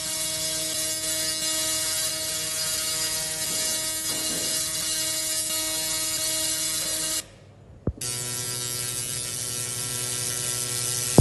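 100 W portable laser cleaning machine running: a steady hiss with fixed whining tones. About seven seconds in it cuts off, a click follows, and it starts again with a lower hum in the mix, as when the machine is switched to another working mode.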